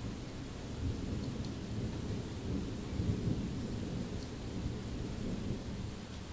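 Thunder rumbling in a long, low roll, loudest about three seconds in and fading toward the end, over steady rain.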